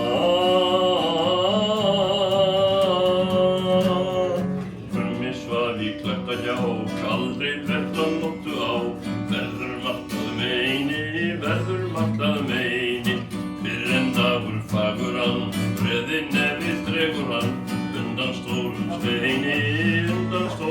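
A voice singing to acoustic guitar: one long held, wavering note for about the first four seconds, then a plucked guitar tune with the singing moving over changing notes.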